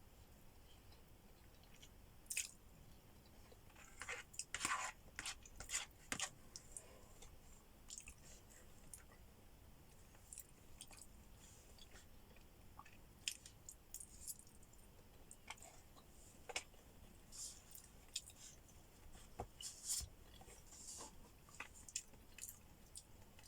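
Mukbang-style eating of Jollibee Chicken Joy fried chicken: faint close-up chewing with scattered crunchy bites and wet mouth clicks, busiest about four to six seconds in.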